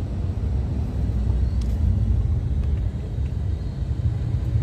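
Steady low rumble of a car's engine and road noise heard inside its cabin, in slow traffic.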